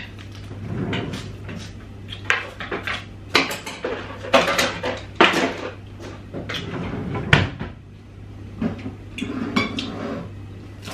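Kitchen clatter: cupboard doors knocking and dishes, pots and utensils being handled, in irregular knocks over a steady low hum.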